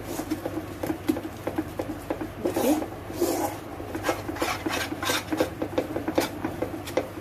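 A metal spatula scrapes and stirs thick, cooked gram-flour (besan) khandvi batter around a pan in quick, repeated strokes. The batter has cooked down to a stiff paste that is ready to spread.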